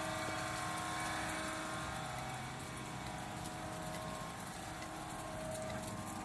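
A water-cooled 5-ton-per-day flake ice machine running, its Bitzer piston compressor and condenser water circuit making a steady mechanical hum. A few constant tones sit over an even rushing hiss.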